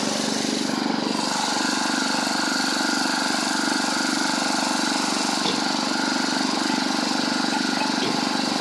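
An engine running steadily at idle, an even, unchanging drone.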